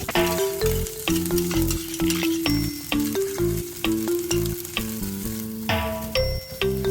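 Background music, a melody of short notes over a repeating bass line, with food sizzling in a frying pan underneath; the sizzle is strongest near the start and again about six seconds in.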